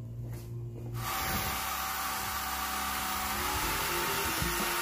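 Background music, then about a second in a cordless drill starts and runs steadily at a metal bracket on a plastic radiator fan shroud, its motor whine rising slightly in pitch partway through.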